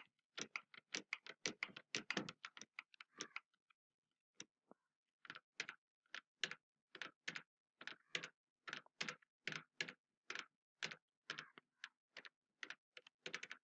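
Faint computer keyboard keystrokes, a rapid run of sharp clicks at about three a second as lines are copied and pasted, with a short pause after about three seconds.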